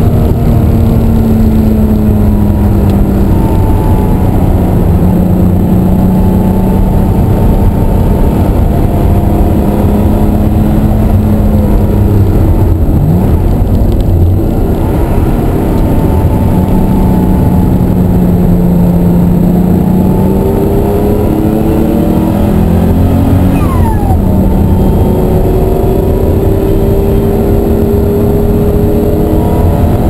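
1988 Ruf CTR 'Yellow Bird's twin-turbocharged air-cooled flat-six heard from inside the cabin under hard track driving, the engine note climbing as it pulls and dropping back at each gear change and lift, over and over.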